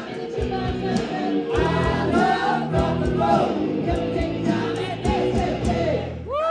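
Live band playing a rock cover song with a woman singing lead over a steady drumbeat.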